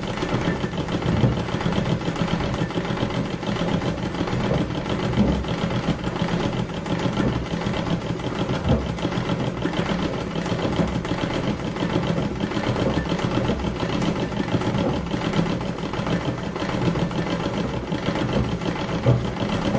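Treadle sewing machine running steadily, its needle stitching up and down fast in free-motion embroidery.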